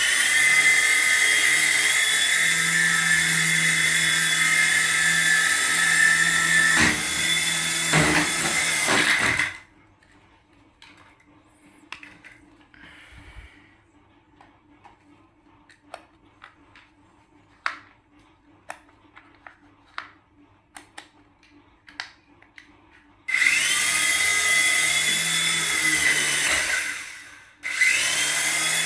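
Small electric motor of a radio-control toy aircraft running with a high whine for about nine seconds, then cut off. A stretch of small clicks and taps follows. The motor then spins up again with a rising whine, winds down briefly, and starts once more near the end.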